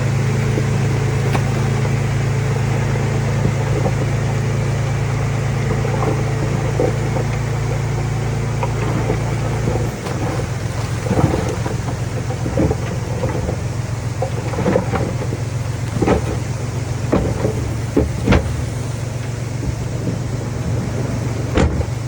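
Diesel engine of heavy earthmoving equipment running steadily with a low drone. From about halfway through, a series of sharp metallic knocks and clanks comes over the engine.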